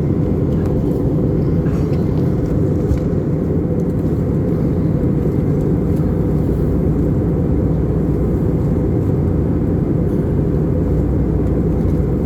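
Airbus A320 cabin noise in flight: a loud, steady low rumble of engines and airflow, heard from inside the passenger cabin.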